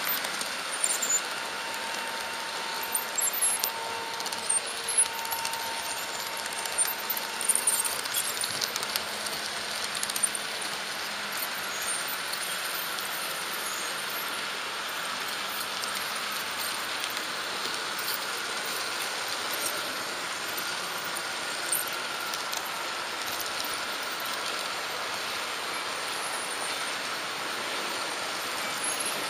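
H0-scale model train running along its track, heard from the locomotive: wheels clicking sharply over a run of turnouts for the first ten seconds or so, then a steady rolling hiss with a faint motor whine.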